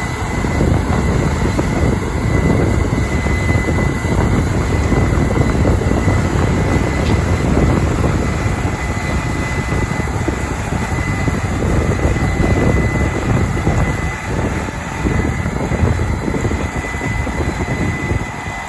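Case IH 8250 Axial-Flow combine on tracks running under load while harvesting corn: a loud, steady engine and threshing drone with a constant high whine.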